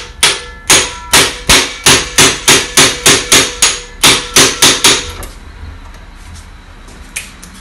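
A hammer strikes a hand impact screwdriver about fifteen times in quick succession, roughly three blows a second, each with a sharp metallic ring; then the blows stop. The shock of each blow is meant to loosen a seized cross-head screw in an alternator housing.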